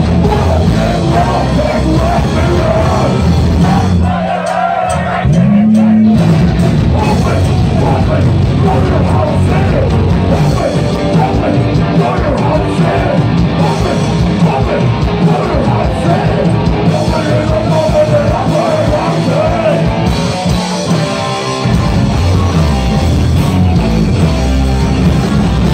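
Punk rock band playing live and loud, with electric guitar, bass and drums under shouted, yelled vocals.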